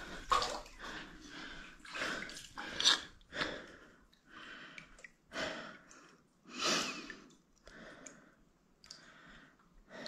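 Quiet, irregular sloshing and splashing of standing water as a person wades through it, about one swish a second, with breathing in between.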